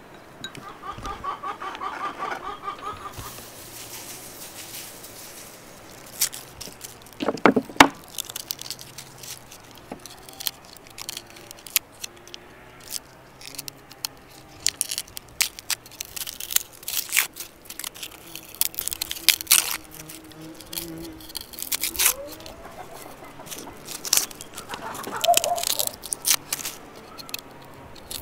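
Garlic cloves being peeled with a kitchen knife: dry papery skins crackling and tearing, with sharp clicks of the blade against the cloves.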